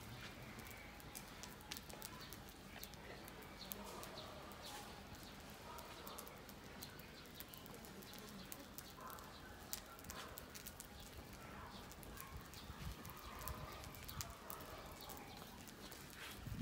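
Faint, scattered crackling and ticking of a burning matchstick sculpture as it smoulders, with the match heads catching and the flames flaring up near the end.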